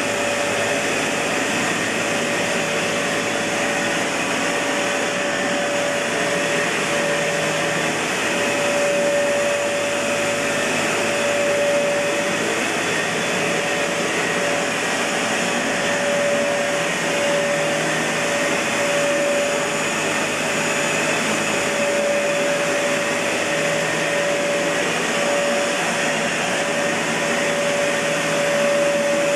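Kenmore Elite Cleva upright vacuum cleaner, with its Panasonic Inducer motor, running steadily: a rush of air with a steady whine over it.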